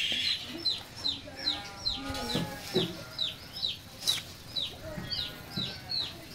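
A bird chirping over and over, short high chirps that fall in pitch, about two a second, with a single sharp knock about four seconds in.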